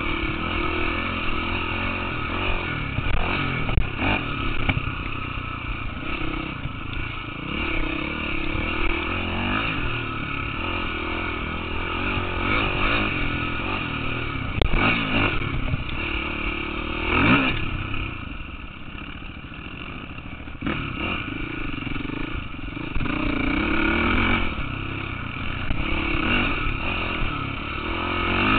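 KTM 450 single-cylinder four-stroke dirt bike engine running on the trail, revs rising and falling as the throttle opens and closes, with a quieter low-revs spell past the middle. A few sharp knocks and clatter from the bike come through over rough ground.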